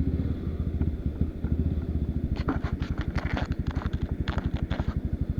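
Enduro dirt bike engine chugging at low revs, with rapid even firing pulses that come in suddenly at the start. Partway through, a run of sharp clattering knocks sounds over it.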